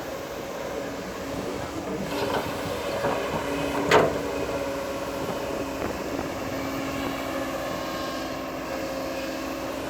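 Shantui crawler bulldozer running steadily, with its steel tracks squealing and clanking and one sharp metallic clank about four seconds in.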